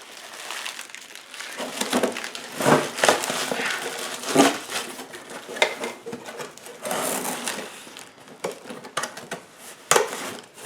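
Cardboard box and packing material being handled, with crinkling, rustling and scattered knocks as an old starter motor is packed into the box.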